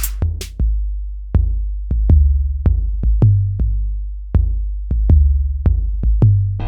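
Electronic music: a drum-machine beat of deep bass-drum hits at an uneven, roughly half-second spacing, with two sharp snare-like hits right at the start.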